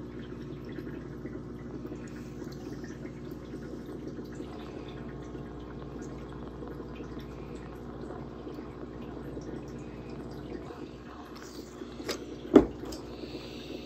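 Aquarium air pump humming steadily with water bubbling from the air line. A single sharp knock near the end.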